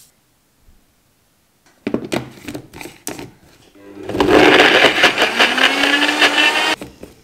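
NutriBullet blender running for about three seconds while blending a berry protein shake, its pitch rising a little, then stopping suddenly. A few knocks and rattles come before it starts.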